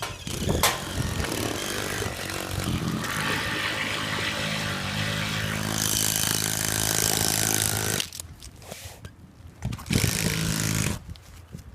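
A small engine running loudly and steadily for about eight seconds, then cutting off suddenly, with a second short burst about ten seconds in.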